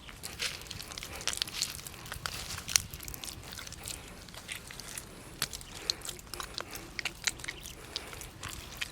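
Someone biting and chewing crunchy food: irregular sharp crunches, several a second at times.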